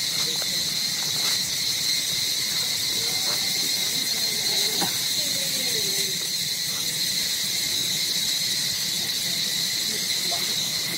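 Insects giving a steady, high-pitched drone that does not pause.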